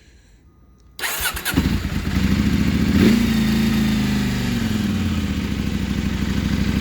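KTM 790 Adventure's parallel-twin engine cranking on the starter for about half a second, then catching about a second in. It revs up briefly and settles back to a steady idle. The bike has an intermittent hard-starting fault that a new MAP sensor has not cured.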